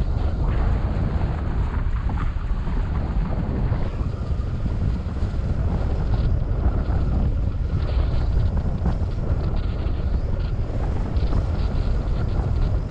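Steady rushing airflow buffeting the microphone, the wind of a paraglider in flight.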